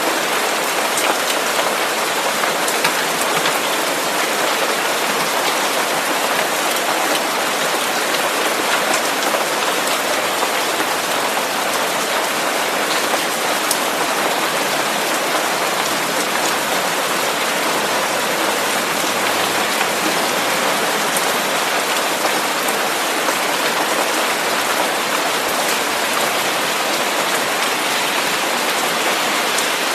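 Steady rain-like white noise: an even, unchanging hiss sprinkled with faint scattered ticks like falling drops.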